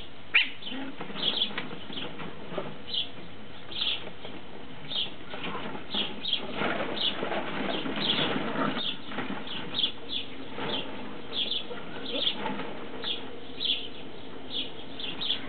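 Puppies rummaging through a dog bed full of plastic play balls, the balls rustling and clacking, busiest around the middle. Short high chirps repeat about once a second throughout.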